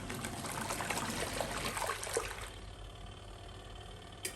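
Small folding portable washing machine agitating water and laundry in its tub, with sloshing and splashing. The water noise eases off about two and a half seconds in, and a short click comes near the end.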